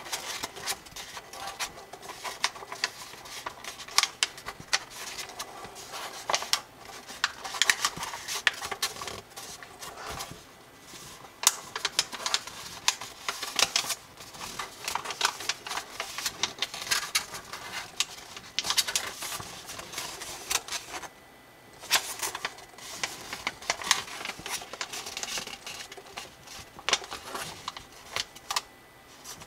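A sheet of 18 cm square colored origami paper crinkling and rustling as fingers fold and crease it: an irregular run of sharp crackles and taps, with a short lull about 21 seconds in.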